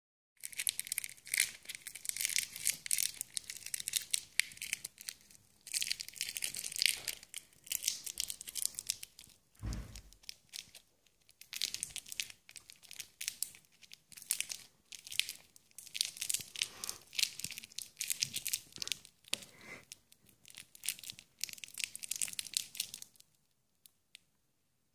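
A small piece of plastic crinkled and crumpled between the fingers in repeated bursts of crackling, stopping about two seconds before the end. A single low thump comes about ten seconds in.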